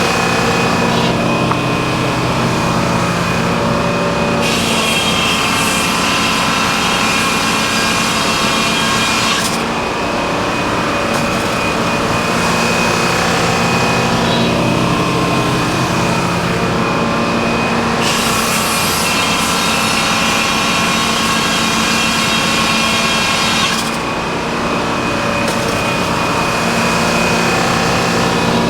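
Engine-driven sawmill running steadily, its blade cutting through a log twice, each cut lasting about five seconds, the first starting about four seconds in and the second in the second half.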